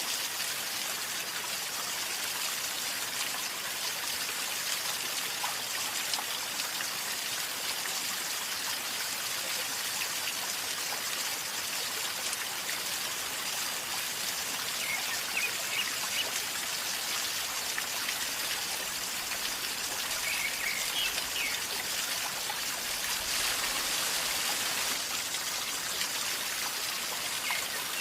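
A river flowing calmly with a steady gurgling of water.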